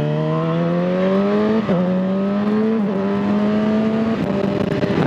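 Yamaha R6 inline-four engine accelerating through the gears while the bike is ridden. The pitch climbs, drops sharply at upshifts about 1.7 and 3 seconds in, and settles lower near the end, with a steady rush of wind and road noise underneath.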